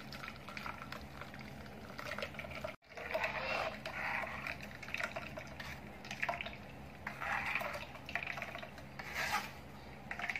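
Thick tomato pulp poured from a steel pot into a fine steel mesh strainer. From about three seconds in, a steel spoon scrapes and rubs the pulp against the mesh in repeated strokes, pushing it through to strain it.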